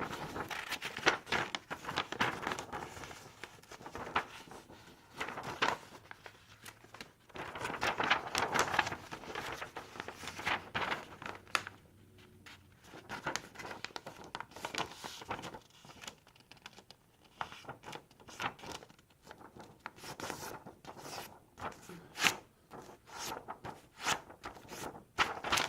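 A sheet of paper being folded over and creased by hand: irregular crinkling and rustling with short sharp crackles as the crease is pressed down.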